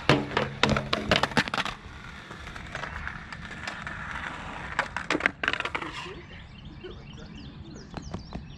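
Skateboard sliding across a metal flat rail: a grinding scrape with a low steady ring and a rapid clatter of hits for the first second and a half. Then wheels rolling on concrete, and a second cluster of sharp board clacks on concrete about five seconds in.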